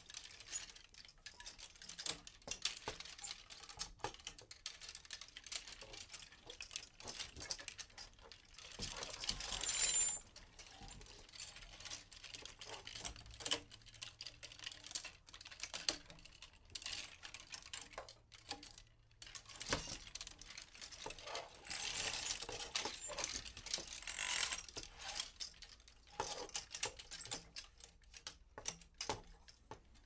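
Clothes hangers sliding and knocking against each other: an irregular run of clicks and clatters, with longer scraping sweeps about nine seconds in and again from about twenty-two to twenty-five seconds.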